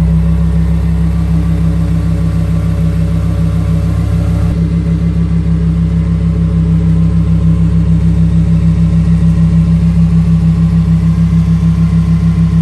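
Lamborghini Huracán EVO's 5.2-litre V10 idling, loud and steady at an even pitch with a slight regular throb.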